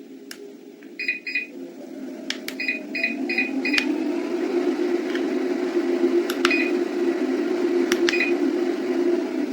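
Walking pad under-desk treadmill running, a steady motor and belt hum that grows louder over the first three seconds and then holds. Short electronic beeps come twice, then four times about a second later, along with a few sharp clicks.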